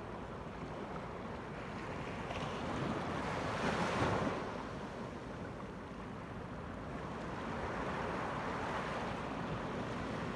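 Small ocean waves washing up onto a sandy beach. The surge peaks about four seconds in and builds again near the end.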